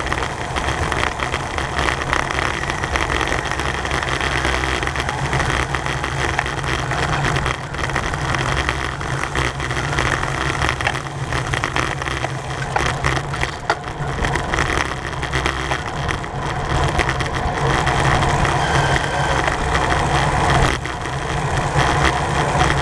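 Steady wind and road noise from a racing bicycle moving at race speed, rushing over the rider's camera microphone with a heavy low rumble.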